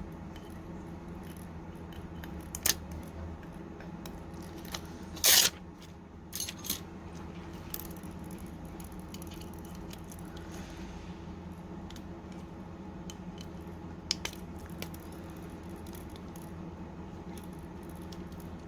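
Scattered small clicks and taps of phone parts and small tools being handled on a workbench, the loudest a brief clatter about five seconds in, over a steady low hum.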